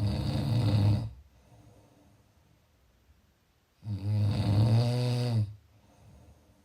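A person snoring: two long, loud, low-pitched snores about four seconds apart, each lasting a second or more, with much softer breathing between them.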